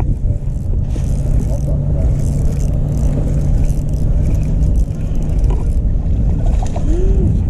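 A boat motor running, with a steady low hum that drops away about five seconds in. A jacket sleeve brushes against the microphone in patches.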